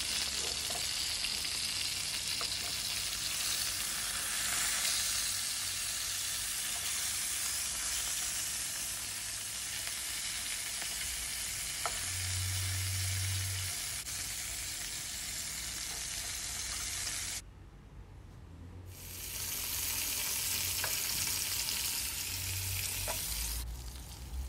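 Village chicken pieces sizzling steadily as they fry in hot olive oil, with a few light clicks of tongs turning them. The sizzle cuts out abruptly for about a second and a half roughly two-thirds of the way through, then comes back.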